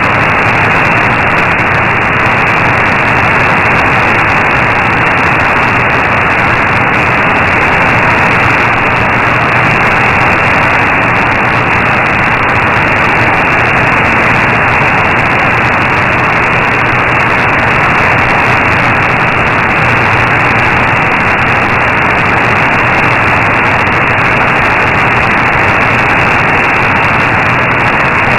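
Steady shortwave static and hiss from an AM receiver tuned to 15476 kHz. The signal is too weak for any programme to be made out above the noise.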